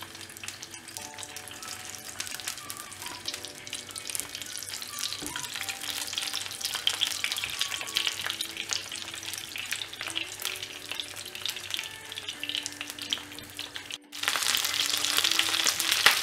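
Banana-leaf parcel of pomfret shallow-frying in coconut oil on a tawa, sizzling steadily with many small pops. The sizzle stops for a moment about fourteen seconds in, then comes back louder.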